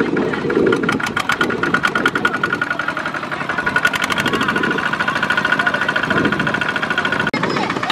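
Kubota walking tractor's single-cylinder diesel engine chugging with a fast, even beat, working hard as it drags its trailer through deep mud.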